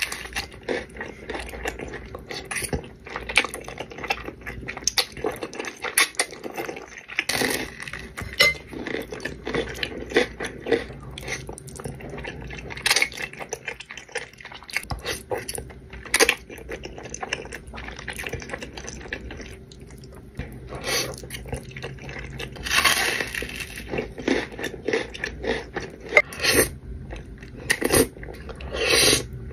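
Close-miked eating sounds: wet chewing and slurping of creamy noodles, with irregular clicks of a fork against a bowl.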